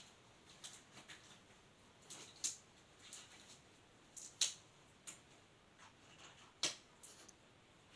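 Faint, irregular clicks and light taps of small equipment being handled and set out, about a dozen scattered through, the sharpest about four and a half seconds in and another near seven seconds.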